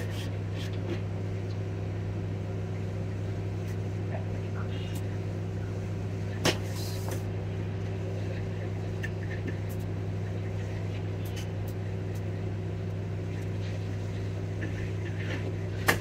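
A steady low electrical hum, with a few faint clicks and a brief hiss about six and a half seconds in.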